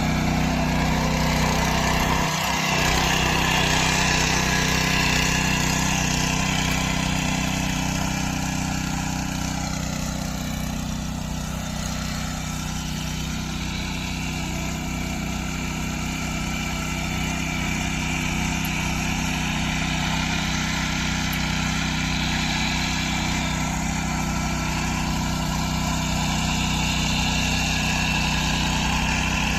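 Small engine of a power weeder running steadily while its rotary tines till the soil.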